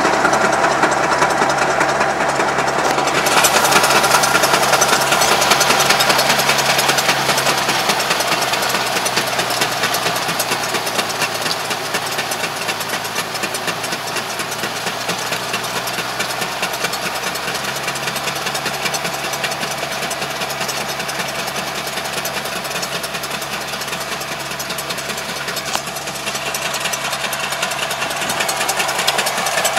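Diesel engine of a Yanmar YT333 tractor running steadily under load as it pulls a ridge-forming mulch-laying implement, a little quieter in the middle and louder again near the end.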